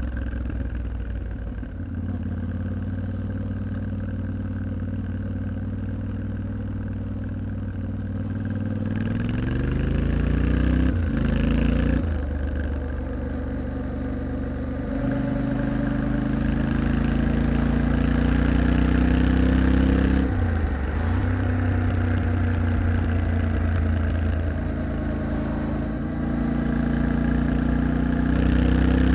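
An engine running steadily. Its pitch climbs between about 9 and 12 seconds in, holds higher, then dips briefly around 20 seconds in before settling again.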